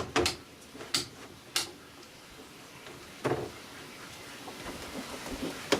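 About five separate sharp clicks and knocks spread over a few seconds, from switches and equipment being handled on a mains-powered bench setup that is not powering up.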